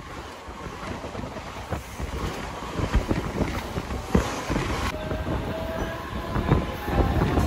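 Suburban commuter train running, with a steady rumble and irregular knocking and clattering from the wheels and carriage.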